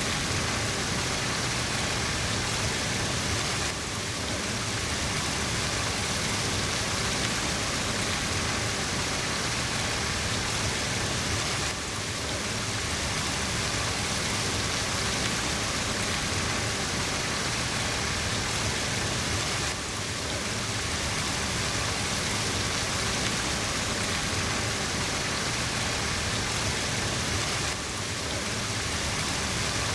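Steady hiss of falling water, even and unbroken, with a slight dip about every eight seconds.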